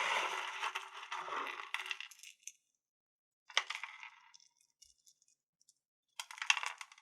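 Small crystals clinking and rattling against each other for about two and a half seconds. Two short bursts of clinking taps follow, about three and a half and six seconds in.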